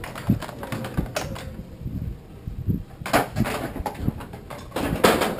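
Empty steel IBC tote cage being shifted and tipped upright on concrete: the metal frame knocks and rattles several times.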